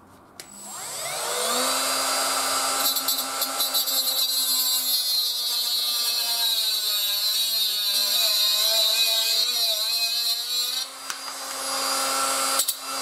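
Parkside cordless mini angle grinder spinning up with a rising whine, then cutting through a one-handed bar clamp held in a vise. The cut adds a harsh hiss from about three seconds in, and the motor note wavers and sags under load until about eleven seconds in. The tool then runs on freely after a short dip.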